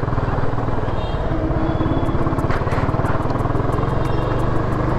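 Motorcycle engine idling steadily with an even, fast pulse.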